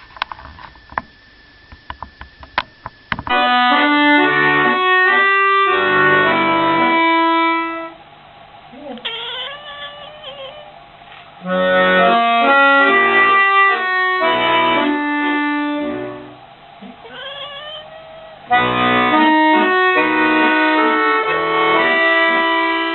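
Accordion music played in three loud phrases of quick, stepping notes, after about three seconds of light scattered clicks and taps. In the pauses between phrases come short sliding pitched sounds.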